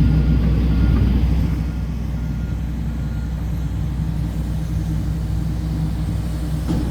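Heavy construction machinery engine running with a steady low drone, louder for the first second and a half, then settling. Faint short reversing-alarm beeps sound in the first few seconds.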